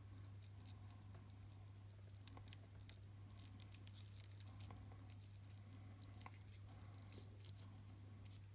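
Faint small clicks and rustles of heat-shrink tubing and wire ends being handled at a workbench, the sharpest tick about two seconds in, over a steady low electrical hum.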